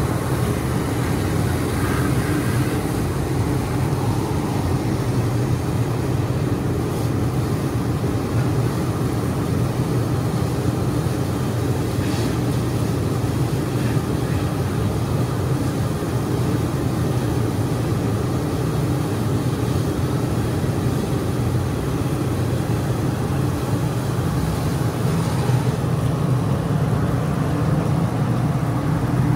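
Fire engine's diesel engine running steadily at raised speed to drive its pump, which is supplying a hose line, with a fainter hiss of water spray and steam.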